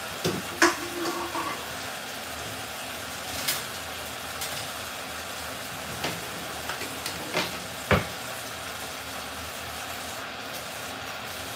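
Curry chicken sizzling in a covered pot: a steady hiss broken by a few sharp pops.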